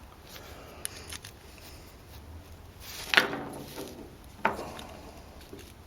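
Plastic dashboard trim being pried loose with a pick: a few light clicks, then two louder creaks about three and four and a half seconds in as the panel flexes.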